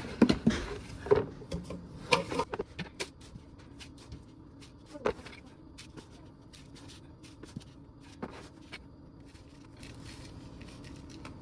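Clicks, knocks and scrapes of a container being handled as chicken feed is put into it. They come thickly in the first few seconds, then thin out to occasional ticks and knocks.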